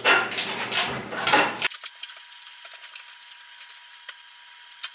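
Hydraulic engine hoist being pumped by hand to lift an engine out of a car: three strokes about half a second apart in the first couple of seconds. Then only a faint hiss with a thin steady tone.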